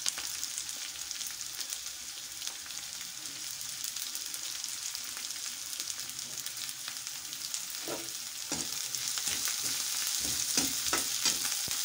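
Chopped onions sizzling in hot oil in a kadhai, a steady crackling hiss as they begin to fry toward light brown. From about eight seconds in, a metal spatula stirs them, scraping the pan, and the sizzle grows a little louder.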